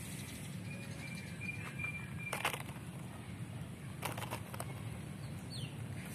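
Outdoor yard ambience: a steady low hum, two brief rustling crackles about two and a half and four seconds in, a thin high whistle lasting under two seconds, and a short falling chirp from a small bird near the end. The rooster does not crow.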